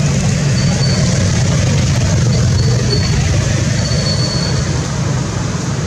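Steady low vehicle rumble with a continuous hiss, and a few faint, short high-pitched chirps.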